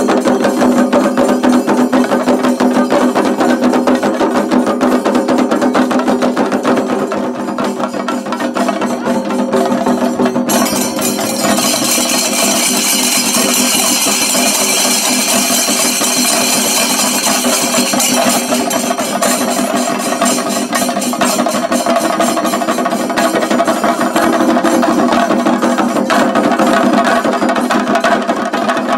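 Chenda drums of a shinkari melam troupe beaten fast and densely with sticks, in an unbroken driving rhythm. A bright hissing layer joins the drumming from about ten seconds in until about eighteen seconds.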